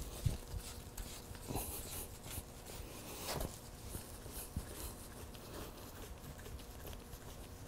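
Faint handling sounds of a motorcycle fork leg being worked by hand: soft rag rustling and a few light knocks.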